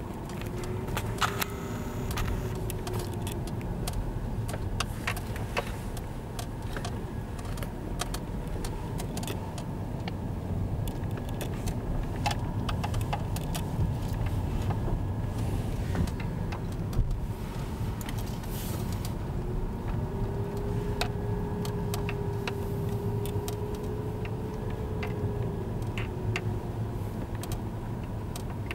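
Heard from inside a car driving slowly: a steady low rumble of engine and road noise, with frequent small clicks and ticks. A faint humming tone comes in briefly near the start and again for several seconds later on.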